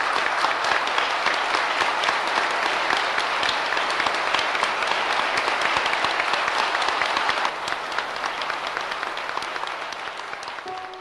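A large crowd applauding with many overlapping claps. It drops a little about seven and a half seconds in and fades near the end.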